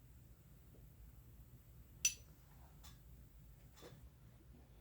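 Lips puffing on a corn cob pipe: three short soft pops about a second apart, the first, about two seconds in, the loudest.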